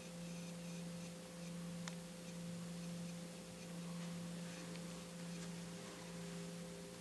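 Steady low hum with a fainter, higher steady tone above it, in a quiet room; a single faint click about two seconds in.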